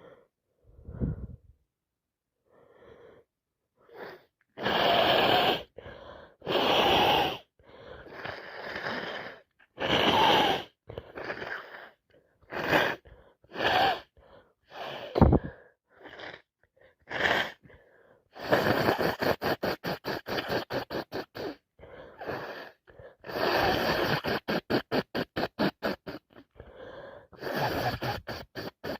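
A woman with a cold works up to sneezing: long gasping in-breaths, a few sudden sharp sneezes around the middle, then long runs of quick rhythmic breaths, about five a second.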